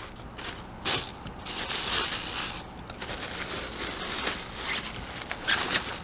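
Thin plastic bag crinkling and rustling in irregular bursts, with a few sharp handling clicks, as a small fog machine is pulled out of it.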